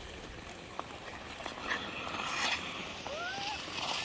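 Ice skate blades swishing and scraping across the ice, with a couple of louder scraping strokes around the middle.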